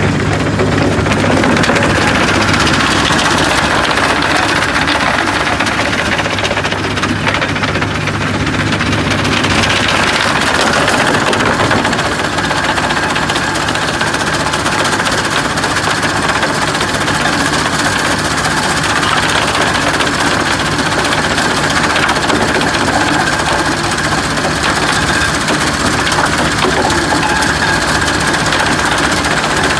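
Mobile soil screening plant running steadily: its diesel engine and vibrating screen decks, with soil and stones rattling over the mesh and conveyor. About ten seconds in, the low engine hum gives way to a noisier, higher rattle.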